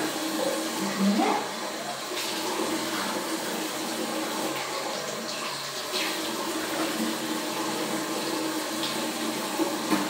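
Bathroom tap running steadily into a sink at the end of tooth brushing, with a few faint clicks and splashes.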